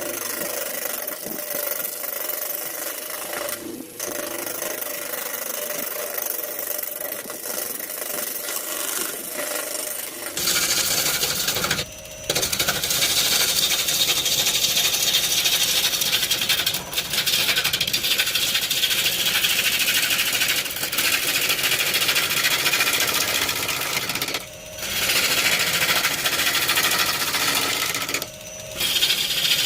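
Power tool working wood: a steady noise that gets louder and fuller about ten seconds in, then stops briefly three times before carrying on.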